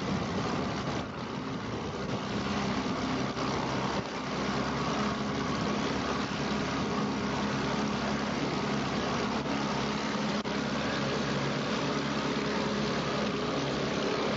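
A boat's engine running steadily at cruising speed, under a constant rushing noise of water and air.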